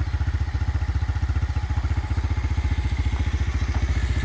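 A 2023 Hellcat 125's carbureted 125cc motorcycle engine idling steadily, with an even, rapid putter.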